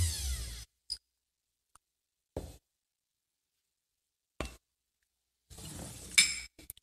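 Berman spindle milkshake mixer's motor winding down with a falling whine, stopping under a second in. Then a few scattered knocks and clinks of a steel mixing cup and glassware being handled, busiest near the end.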